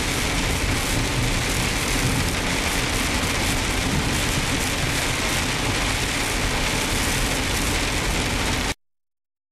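Rain falling steadily, an even hiss that cuts off abruptly near the end.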